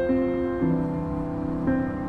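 Soft, slow background piano music, sustained chords changing every second or so.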